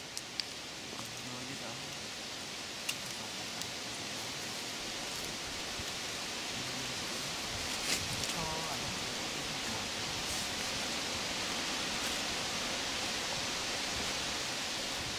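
Steady high-pitched hiss of outdoor forest ambience that slowly grows louder, with a few faint clicks and rustles.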